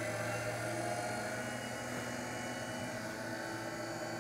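Record Power DML320 wood lathe's variable-speed motor and headstock running with no workpiece. Its hum and whine rise slightly in pitch over the first few seconds as the speed is turned up to the top of the middle-pulley range, about 1660 RPM, then hold steady.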